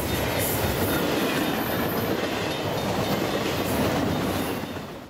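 Train rolling past with its wheels running on the rails, a steady noise that fades out just before the end.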